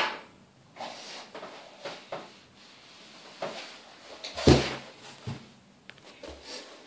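Faint scattered knocks and rustling, with one louder thump about four and a half seconds in and a short squeak near the end.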